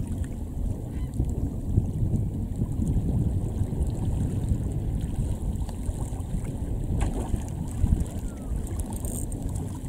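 Wind buffeting the microphone in a low, gusting rumble, with small waves lapping against a stony shore.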